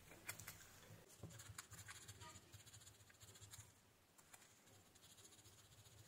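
Faint scratching of a small metal microswitch contact being rubbed against fine emery sheet to scour rust off its contact point, with a few light clicks. The rubbing grows quieter after about four seconds.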